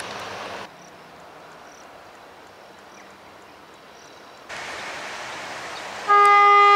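Train noise cuts to a quieter stretch with faint short chirps about once a second, then a diesel locomotive's horn blows loudly near the end.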